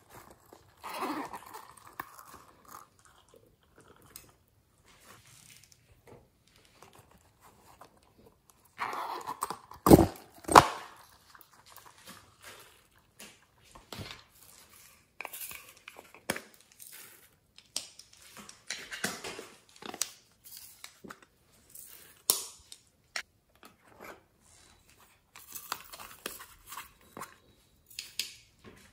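Close-up handling of small plastic containers: scattered clicks, rustles and crinkles as lids are opened and glitter and sequins are shaken out onto slime in a glass dish. Two sharp knocks about ten seconds in are the loudest sounds.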